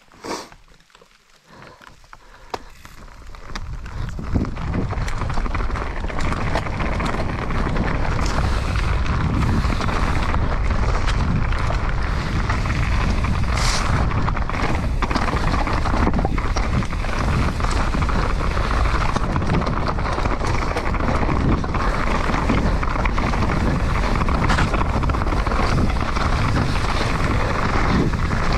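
Mountain bike riding down a rocky dirt trail: after a single click at the start, wind on the camera microphone and the rolling tyres build over the first few seconds into a steady loud rush, with scattered knocks as the bike rattles over rocks and roots.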